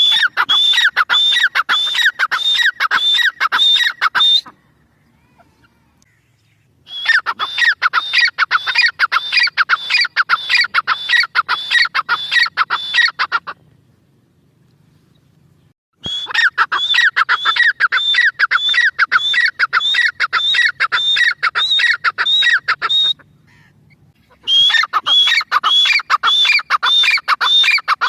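Irani teetar, a partridge, calling loudly in four long runs of rapid, shrill repeated notes. Each run lasts several seconds, with short pauses between them.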